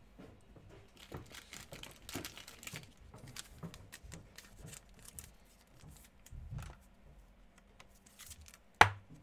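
Trading cards and their packaging being handled: soft rustling and crinkling with small clicks, and one sharp louder click near the end.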